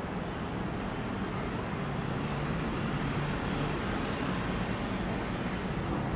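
Steady low rumble of distant road traffic, swelling slightly mid-way.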